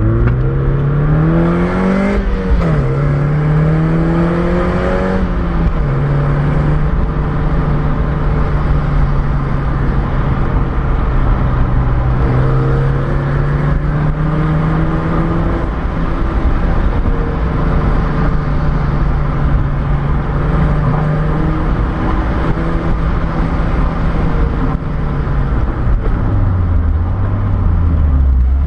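Mazda MX-5's four-cylinder engine heard from inside the car, revs climbing through two upshifts, each shift dropping the pitch, then holding steady revs over road noise. Near the end the revs fall away as the car slows for a bend, then pick up again.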